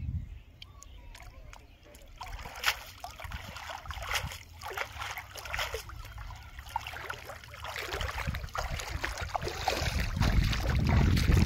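Shallow water splashing and sloshing as a cast net is drawn in and lifted out, with quick dripping splashes from the net. It grows louder near the end as the fisherman wades through the water, with low rumbling that may be from the wading or from wind on the microphone.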